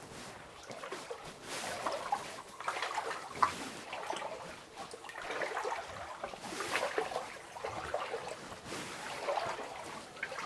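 Water sloshing and splashing unevenly as someone wades through a flooded mine tunnel.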